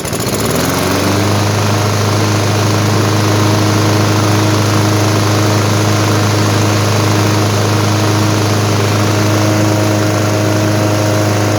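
Craftsman lawn mower's 163cc Briggs & Stratton single-cylinder engine just started, speeding up over the first second and then running steadily at speed, with its air filter off.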